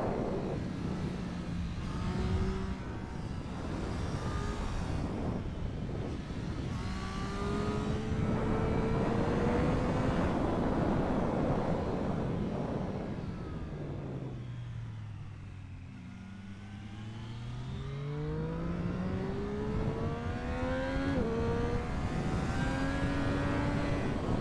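Triumph Street Triple 765 RS's inline three-cylinder engine under hard acceleration, its pitch climbing through the gears and dropping back at each upshift. About midway the engine note falls low as the bike slows, then it pulls up through the gears again, with wind rushing over the microphone.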